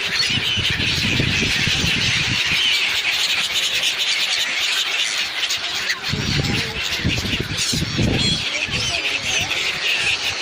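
A dense chorus of many small birds chirping at once, steady throughout. Low rumbling comes and goes beneath it, in the first few seconds and again from about six to eight seconds in.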